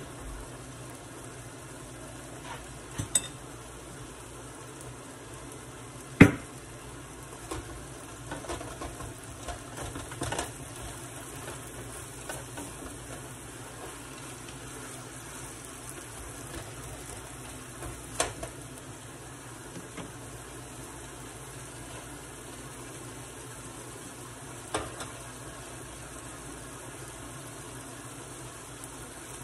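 Chicken breast pieces sizzling in sauce in a skillet as they are stirred with a spatula, with a handful of sharp knocks of the utensil against the pan, the loudest about six seconds in.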